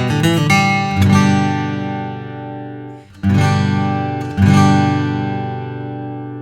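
Taylor 614ce Limited steel-string acoustic guitar played solo: a few quick picked notes, then chords struck at about one, three and four and a half seconds, each left to ring out and fade slowly.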